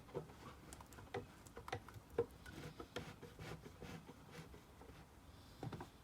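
Quiet handling noise: scattered light clicks and taps, with one sharper click about two seconds in and a small cluster near the end.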